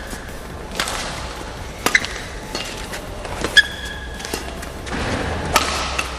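Badminton rally: rackets strike the shuttlecock four times, a second or two apart, with short high squeaks of court shoes on the floor between shots.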